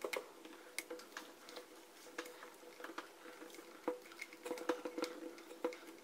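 Irregular small clicks and scrapes of a screwdriver tightening the cord clamp screw inside a hair dryer's plastic handle, with light knocks of the plastic parts being handled.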